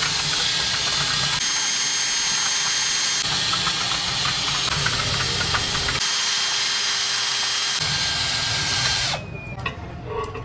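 Cordless drill running steadily at low speed, with a thin steady whine, driving a homemade blending rod through thick haleem in a large pot. It cuts off about nine seconds in.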